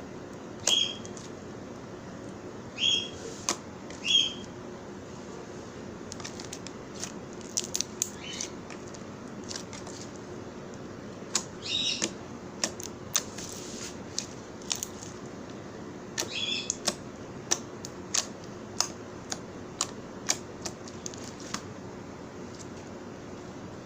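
Slime being handled: irregular sharp clicks and crackles, with several louder, short popping squelches spread through.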